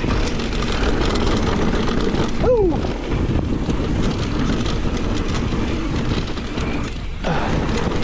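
Mountain bike riding fast down a dirt singletrack trail: a steady loud rush of tyre and trail noise with wind on the microphone. Two short falling squeaks cut through, about two and a half seconds in and again near the end.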